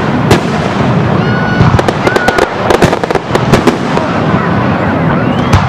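Fireworks display: a continuous low rumble of aerial bursts overlaid with rapid, sharp crackling reports, thickest from about one and a half to four seconds in.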